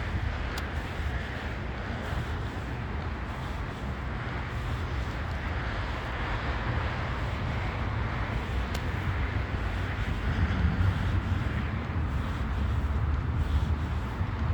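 City street traffic: cars passing with a steady low rumble, a little louder near the end.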